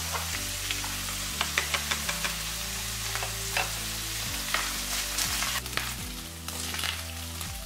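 Ground beef with diced carrot, celery and onion sizzling in a frying pan, and a utensil clicking and scraping against the pan as the mixture is stirred. There are several sharp clicks, most between about one and six seconds in.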